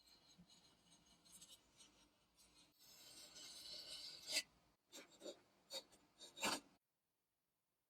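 Faint scraping and rubbing, growing into a louder rasping scrape about three seconds in, followed by a handful of sharp clicks and taps before the sound cuts off to silence.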